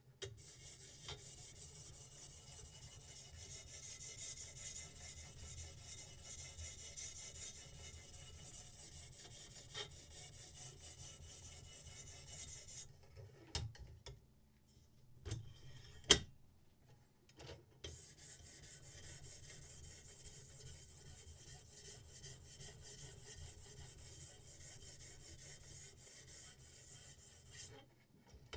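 Knife edge being ground on a sharpening stone: a steady, faint scraping rasp. About halfway it stops for a few seconds while there are some clicks and one sharp knock, then the grinding starts again.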